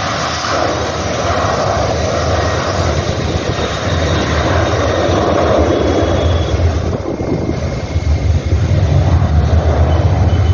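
Busy road traffic: a steady rush of passing vehicles over a deep engine drone, which grows louder in the second half as heavy vehicles go by.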